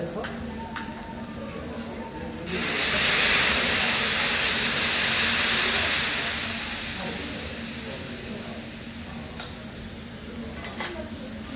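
Food sizzling on a hot teppanyaki steel griddle: about two and a half seconds in, a loud hiss bursts up all at once and then slowly dies back down to a low sizzle. A few light clicks sound near the start and near the end.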